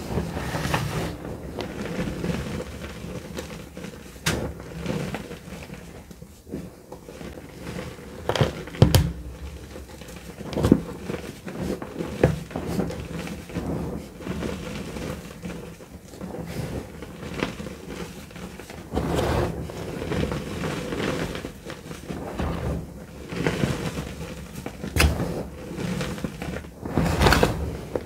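Hands crushing and squeezing dry gym chalk blocks into loose powder: continuous soft, crumbly crunching with a sharp crack now and then as a firmer lump breaks.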